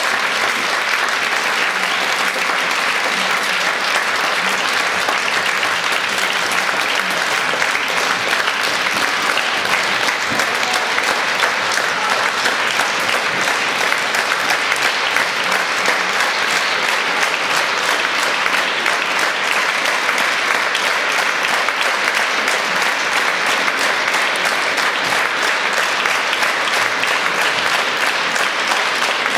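Large concert audience applauding steadily, many hands clapping at once.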